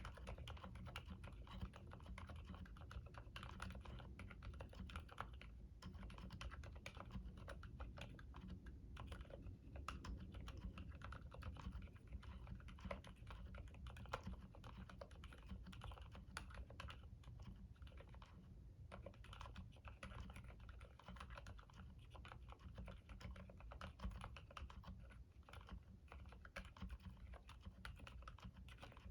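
Continuous typing on a CIY X79 mechanical keyboard with Gateron Silent Black switches, which are dampened linear switches, and OEM-profile keycaps. The keystrokes are quiet and muted, with brief pauses about five and eighteen seconds in.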